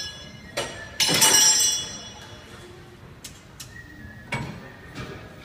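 Clinks and knocks of metal and glass during storefront dismantling work. About a second in comes one louder, ringing clatter lasting under a second, with scattered lighter clicks after it.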